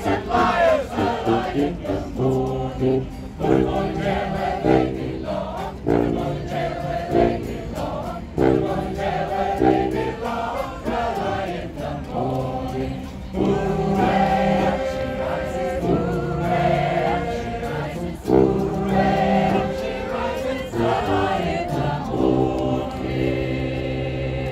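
A choir singing together from song sheets, in short repeated sung phrases.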